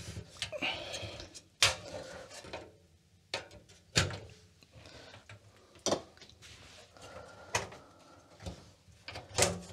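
A handful of sharp clicks and knocks, a second or two apart, as an Amiga 2000 motherboard is worked free of its last plastic mounting clip and lifted out of its metal case, with light handling rustle between them.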